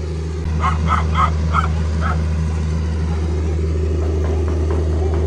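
A dog barking, about five short yips in quick succession about a second in, over a steady low hum.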